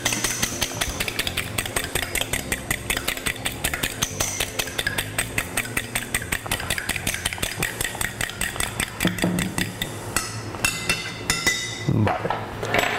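Egg being beaten with a fork in a ceramic bowl: a fast, steady clicking of the fork against the bowl, several strokes a second. It stops about ten seconds in and is followed by a few separate clinks.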